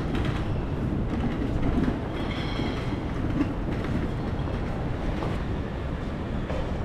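Steady low rumble of busy city background noise, with a faint higher tone about two seconds in.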